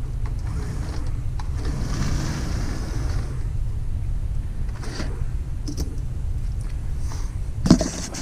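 Athearn Blue Box SD40T-2 model locomotive running on test after a tune-up, its motor and gears giving a steady low rumble with scattered light clicks. A sharp clack comes near the end.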